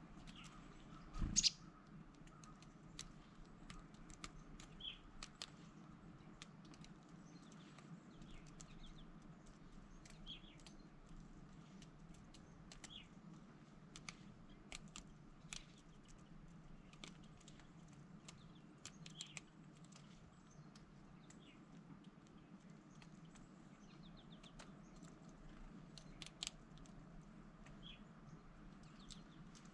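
Faint, irregular light taps and ticks, typical of a downy woodpecker pecking at food held in a hand, with a short high bird call every few seconds. One louder knock comes about a second in.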